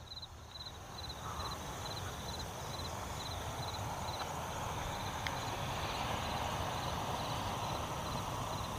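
A cricket chirping in short high chirps about twice a second, over a steady noise that grows louder from about a second in.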